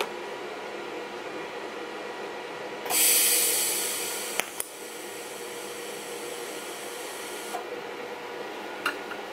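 TIG welding arc struck on the end of a 3 mm stainless steel cable about three seconds in, melting its frayed strands into a ball. It starts as a sudden loud hiss that fades over a second or so, runs on more quietly, and cuts off near the end, with a couple of sharp clicks along the way. A steady machine hum lies underneath.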